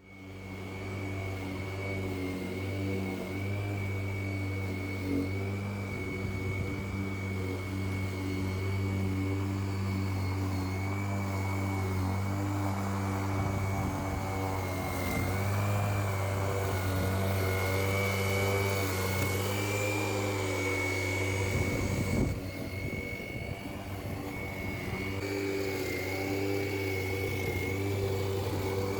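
Parkside 40 V cordless lawn mower's electric motor and blade running steadily, a low hum with a thin high whine on top, switching on abruptly.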